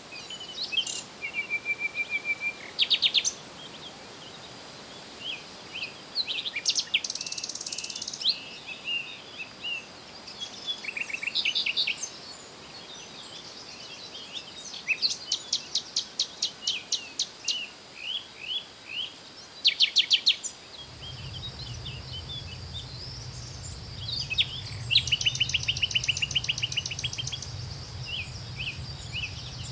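Songbirds chirping and trilling: short repeated notes and rapid trills of a dozen or so quick notes, over a faint steady high hiss. About two-thirds of the way through, a low steady hum comes in and stops near the end.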